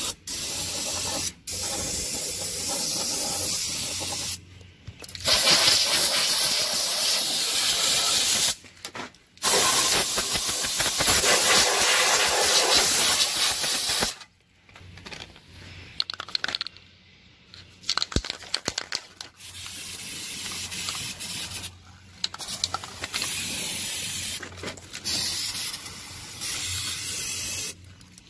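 Aerosol spray lubricant hissing out of the can in repeated bursts of one to five seconds, used to clear rust from mower deck parts. In the middle there is a break of several seconds with only small clicks and handling sounds.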